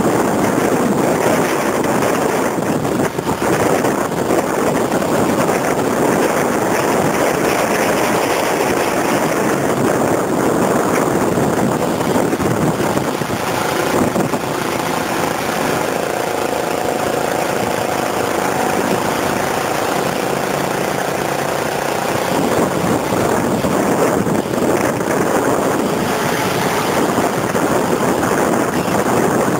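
Gusting storm wind buffeting the microphone of a moving vehicle, with a vehicle engine running underneath. A steadier engine tone shows through in the middle.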